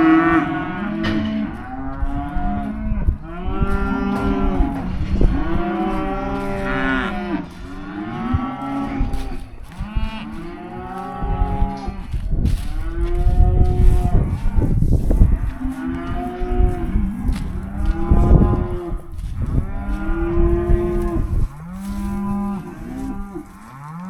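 Many weaned beef calves bawling loudly, call after call overlapping, because they have just been separated from their mothers. Low knocks and rumbles of cattle moving in the pen sound underneath.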